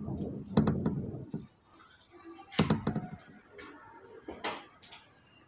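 Handling noises from a mangalsutra (a beaded necklace chain) being held and worked with the fingers: rustling and rubbing, with sharp clicks about two and a half seconds in and again near the end.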